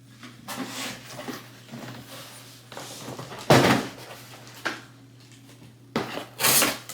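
Cardboard boxes of flat-pack furniture being handled and moved, with scraping, rustling and several knocks; the loudest knock comes about three and a half seconds in.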